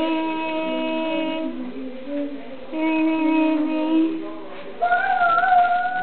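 A high voice singing long held notes without words: two sustained notes, then a third, much higher note held near the end.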